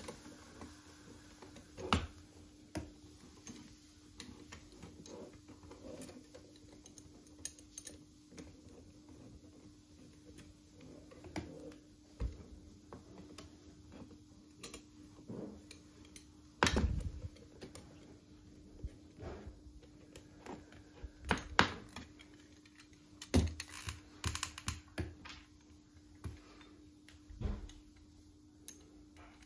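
Thin brass rods and a brass mounting plate clicking and tapping against each other as they are handled and fitted together: irregular light clicks with a few louder knocks.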